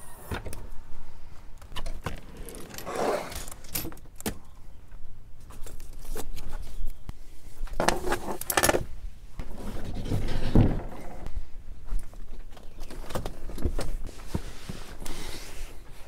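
Knocks, bumps and metallic clinks of gear being shifted in an SUV's rear cargo area as a portable 12-volt fridge is pulled out and carried. The loudest knocks come about eight to nine seconds in.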